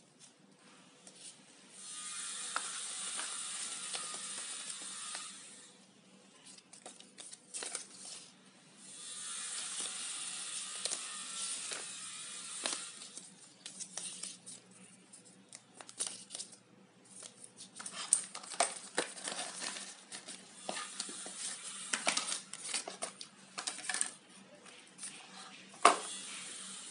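Hands handling a small fitness band and its plastic packaging: two stretches of steady scraping hiss lasting a few seconds each, then a run of irregular clicks and rustles.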